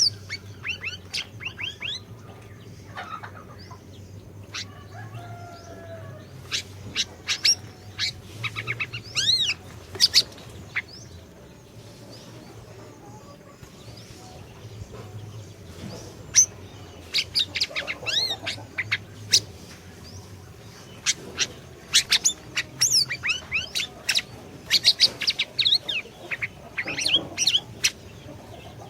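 Siri-siri songbird singing in bursts of rapid sharp chirps and quick whistled glides, with short pauses and one longer lull about a third of the way in. A faint low hum runs underneath.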